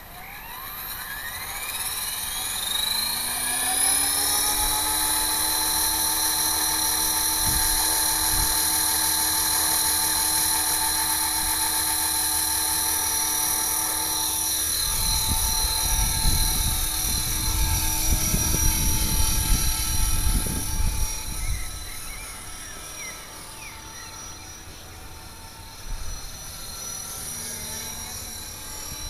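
HK 450 Pro TT electric RC helicopter spooling up, its whine rising in pitch over the first few seconds, then running steadily at around 2200 rpm headspeed with a high whine. The noise is unhealthy: one of its mainshaft ball bearings is defective. A low rumble comes in from about halfway through, and the sound drops in level near the end.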